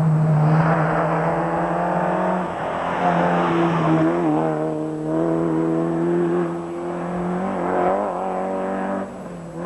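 Rally car engine revving hard as the car slides through a corner and accelerates away, the note dropping and climbing again with several gear changes.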